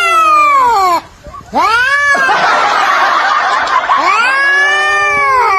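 A cat yowling: long, drawn-out calls that rise and fall in pitch, three in a row, the middle one breaking into a harsh, raspy screech for about two seconds.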